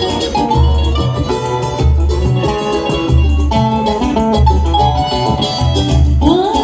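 Samba ensemble playing an instrumental passage: plucked bandolim and cavaquinho over acoustic guitar, with a pandeiro and a deep surdo beat about once a second.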